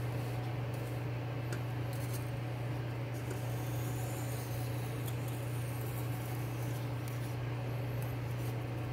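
A steady low hum, with a few faint light clicks and scrapes as a folding knife fitted with a clip-on plastic angle guide is handled and set against a whetstone.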